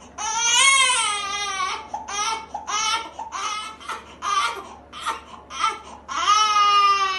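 Baby crying: a long wail, a run of about six short cries, then another long wail near the end.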